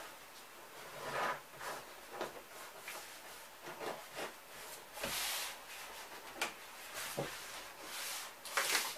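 Hands pressing and smoothing self-adhesive kraft paper tape onto the edge of a cardboard cabinet: irregular rubbing and paper rustling, with a louder hissing stroke about five seconds in and again near the end.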